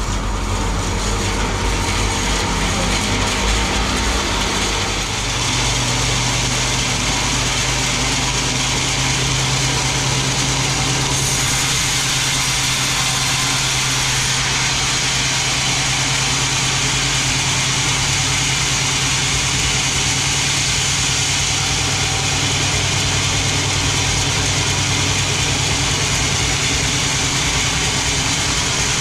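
Large sawmill band saw and its drive machinery running steadily, a constant machine noise with a high hiss. A lower steady hum joins about five seconds in.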